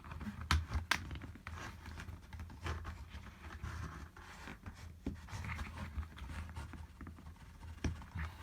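Plastic handling noise as a foot is pushed into a plastic Beyblade stadium: scattered sharp clicks and light scraping.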